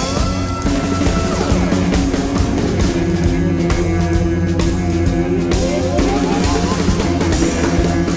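A live band playing an instrumental passage of experimental rock: drum kit beating steadily under guitar and saxophone. A rising glide climbs to a held high note in the first second, and more rising glides come in toward the end.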